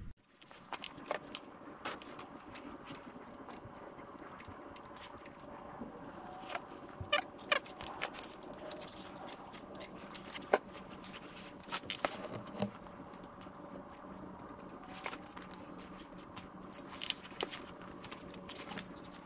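Irregular light metallic clicks and clinks of hand tools and spark plugs being handled while the motorcycle's spark plugs are worked on, over a faint steady hum.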